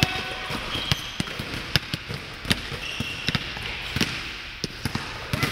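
A basketball bouncing and feet pounding on a hardwood gym floor, heard as irregular sharp thuds, with a few short sneaker squeaks.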